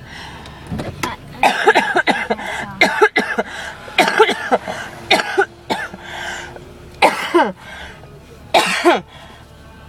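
A person in a coughing fit: hard, rasping coughs in several bouts with short pauses between them. The cough comes from an illness being treated with antibiotics.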